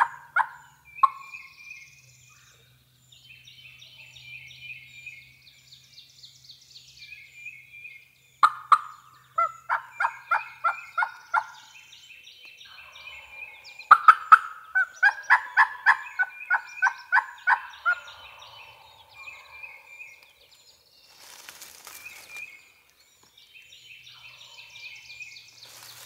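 Wild turkey yelping: two long series of loud, evenly spaced yelps about three a second, and one single yelp near the start. Songbirds sing softly throughout, and there is a brief rushing scuff near the end.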